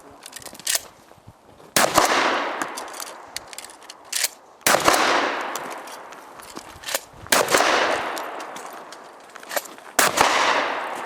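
Four 12-gauge shotgun shots from a Remington 870 pump-action, evenly spaced about two and a half seconds apart, each with a long echoing tail. Smaller sharp clacks fall between the shots.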